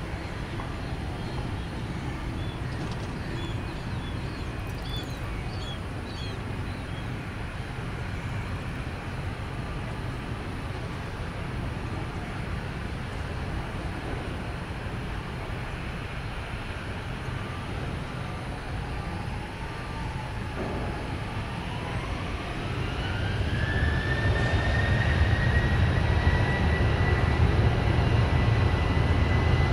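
Boeing 737 jet engines running at low power, then about twenty seconds in spooling up with a rising whine that levels off into a steady high whine over a louder rumble as thrust is set for takeoff. A few faint bird chirps about three to seven seconds in.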